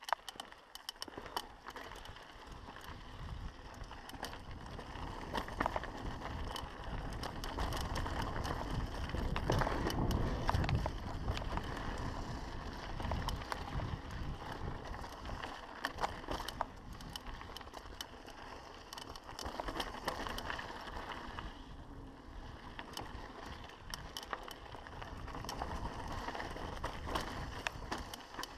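Mountain bike riding down a dry dirt singletrack: steady tyre noise on the dirt with frequent rattles and clicks from the bike. Loudest about ten seconds in.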